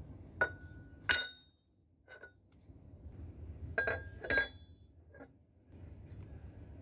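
Steel bearing covers clinking against the bearing housings of a vibro hammer gearbox as they are set in place: about six sharp, ringing metal clinks, the loudest a little after one second and around four seconds.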